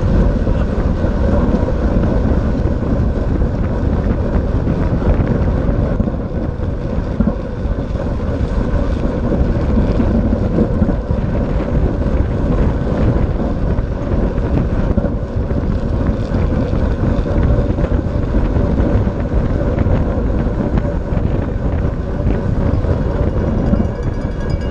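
Wind rushing over the microphone of a camera riding on a track bike at race speed in a pack, with a steady hum of tyres rolling on the velodrome's wooden boards.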